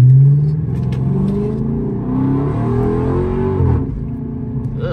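Dodge Charger R/T Daytona's 5.7-litre Hemi V8 heard from inside the cabin, revving up under acceleration, its pitch climbing steadily before easing off about four seconds in.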